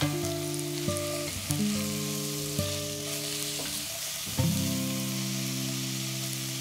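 Sliced red onions sizzling in oil in a stainless steel pan, stirred with a spatula. Soft background music of plucked notes plays over it.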